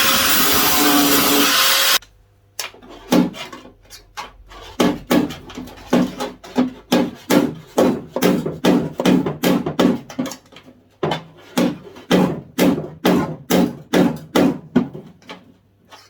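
A power tool runs for about two seconds and cuts off. Then come rhythmic hammer blows, about two a second, on the steel panel of a Ford Consul Mk1 door, panel beating weld distortion flat.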